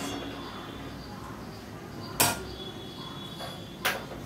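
Cooking noises at a stove: two short, sharp clatter-like noises, about two seconds in and again near the end, over a steady low hiss.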